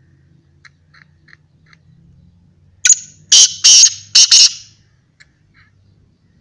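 Male black francolin giving its loud, harsh call: a quick run of about five grating notes lasting under two seconds, starting about three seconds in.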